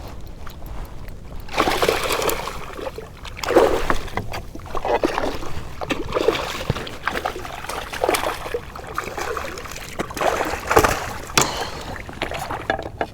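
Water splashing and sloshing against a kayak in irregular, uneven bursts, starting about a second and a half in.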